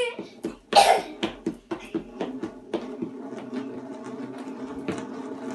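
Plastic hula hoop spinning and clattering on a wooden floor: a quick run of clicks with a loud burst about a second in, then a steady whirring hum as it keeps spinning.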